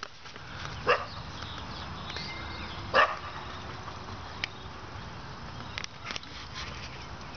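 A dog barking twice, about two seconds apart.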